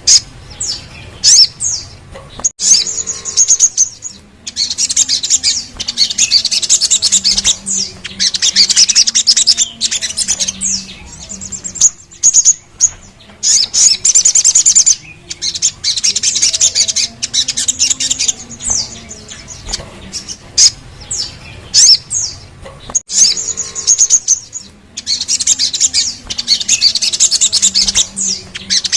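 Sogok ontong (little spiderhunter) song: long, fast, high-pitched rolling trills lasting a few seconds, broken up by sharp single notes that fall in pitch. The phrase pattern repeats about every ten seconds, as in a looped training recording.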